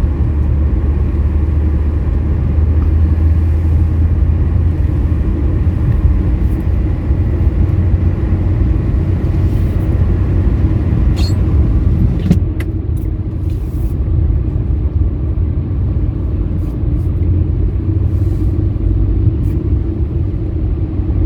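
Steady low rumble of a car's engine and tyres on the road, heard from inside the cabin, with a few brief clicks about halfway through.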